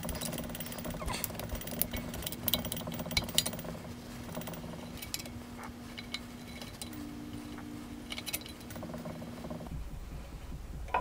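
Small metallic clicks and clinks of a hand tool working the screws and parts on a Taig mill's headstock, thickest in the first few seconds, over a steady low hum that stops near the end.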